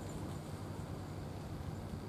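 Steady low outdoor background rumble with no distinct sounds standing out.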